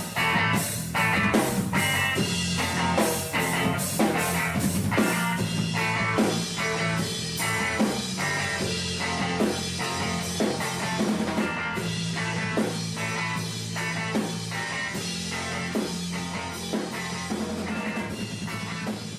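Background rock music with electric guitar, bass and a steady drum beat, fading toward the end.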